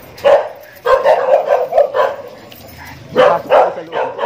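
Dog barking in short, loud bursts, with a quick run of barks between about one and two seconds in and more barks near the end.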